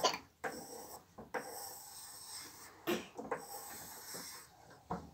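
Pencil scribbling on paper laid on a wooden table: a run of scratchy drawing strokes with short breaks between them, a few landing harder than the rest.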